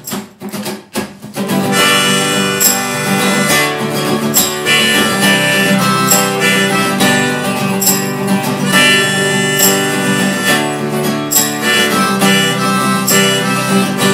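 Instrumental intro of an acoustic folk-rock song: two acoustic guitars strumming, a harmonica playing the melody and a tambourine hit in time. The full band comes in about a second and a half in, after a few sparse hits.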